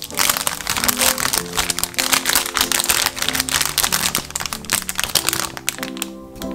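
Clear plastic wrap crinkling as it is pulled off a loaf by hand, over background music; the crinkling stops near the end.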